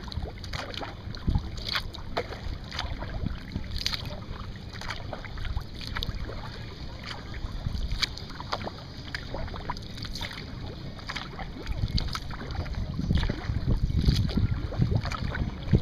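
Kayak paddle strokes dipping and dripping in calm lake water, with small irregular splashes and ticks, over a low wind rumble on the microphone that grows stronger near the end.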